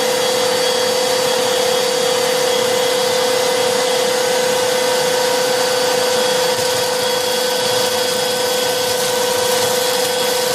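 Two Black+Decker cordless pivot handheld vacuums, an 18-volt and a 20-volt, running together at full suction with a steady whine.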